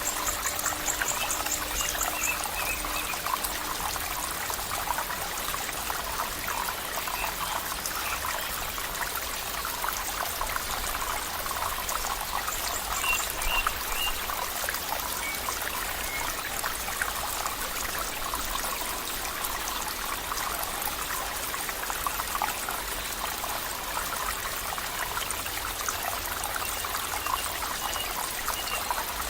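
Water of a small stream trickling and flowing steadily, with a few faint high chirps now and then.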